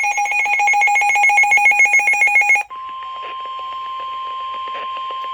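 Weather radio severe thunderstorm warning alert: a loud, rapidly pulsing electronic beeping, which about two and a half seconds in switches abruptly to one steady high tone, the 1050 Hz warning alarm tone that comes before the spoken warning.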